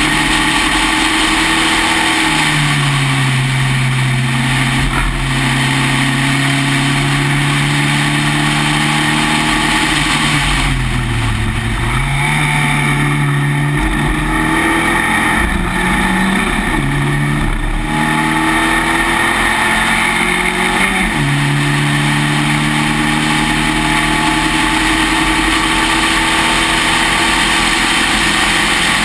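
Spec Racer Ford's four-cylinder engine running hard at racing speed, heard from the open cockpit with wind noise. Its pitch steps down about two seconds in and again about twenty-one seconds in, and dips and climbs around eleven to twelve seconds in.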